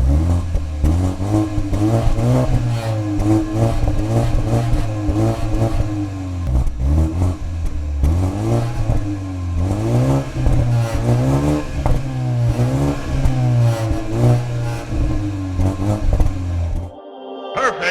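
BMW 320i's two-litre turbocharged four-cylinder engine being revved again and again, each rev climbing and falling back in pitch over a steady low idle. It cuts off abruptly about a second before the end.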